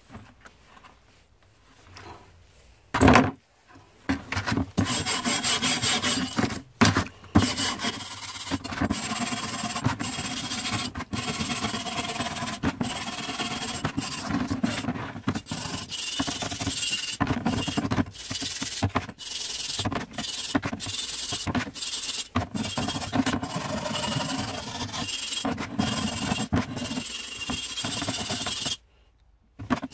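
A single knock about three seconds in, then an abrasive scrubber rubbing rapidly back and forth on a rusty machete blade, an uneven rasping scrub that removes rust after a three-hour soak. It stops just before the end.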